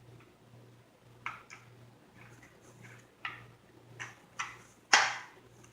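Parts of a Kel-Tec RDB rifle being handled and fitted together during reassembly: a series of sharp clicks and knocks at uneven intervals, the loudest one near the end.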